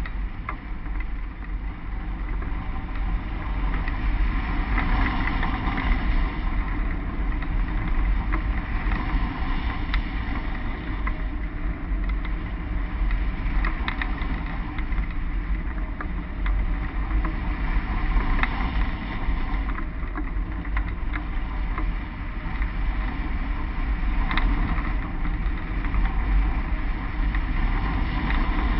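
Wind rushing over a camera microphone mounted on a hang glider's wing in flight: a steady, heavy rumble of airflow, with a few faint ticks scattered through it.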